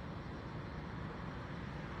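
Steady low rumbling background noise with a faint hiss, no distinct events.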